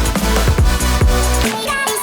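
Electronic dance background music with a steady, punchy kick-drum beat, deep bass and synth notes.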